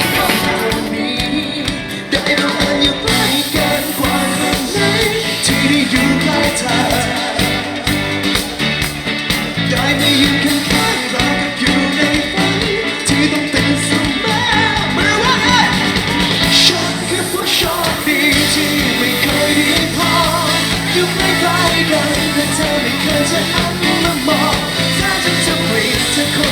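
Live pop-rock band playing with drums, bass and electric guitar, and a male lead vocal singing over it.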